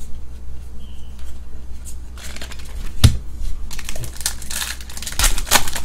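Foil wrapper of a trading card pack crinkling as it is handled and opened by hand, in scattered crackles that grow denser in the second half, with a sharp crack about three seconds in.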